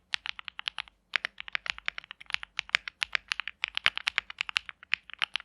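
Fast typing on a custom mechanical keyboard: an aluminium-plate Jelly Evolv with lubed KTT Strawberry V2 linear switches and GMK keycaps, giving a quick run of key clacks with a brief pause about a second in.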